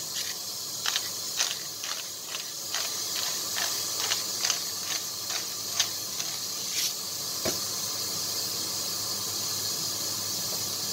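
A slotted metal spatula stirring minced pork in a frying pan, scraping and tapping the pan about twice a second for the first six seconds, with a couple of single taps later, over a steady hiss.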